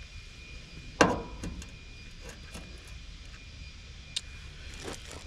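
Handling noises from work on the unit: one sharp knock about a second in, then a few light clicks, over a low steady rumble.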